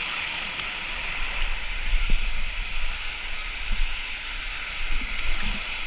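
Waterfall rushing: a steady hiss of falling water, with a few brief low thumps, the strongest about two seconds in.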